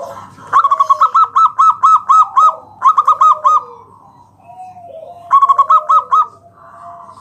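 Zebra dove (perkutut) singing loudly: three quick runs of stuttering coo notes, about seven or eight a second, with softer, lower falling coos between them.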